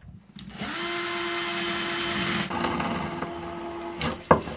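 Cordless drill boring through an old, nearly inch-thick plaster wall, its motor whining steadily, loudest for about two seconds and then at a lower level. A few sharp knocks come near the end.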